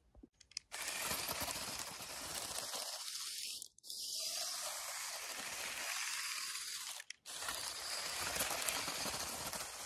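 Lego Technic tracked bulldozer driving through snow, its plastic tracks and blade crunching the snow in a steady noisy crackle. The sound drops out briefly twice, about a third and two thirds of the way through.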